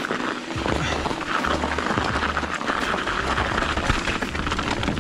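Mountain bike riding down a rough trail: tyre noise with a constant clatter of chain and frame rattling over bumps, and wind buffeting the microphone in uneven gusts.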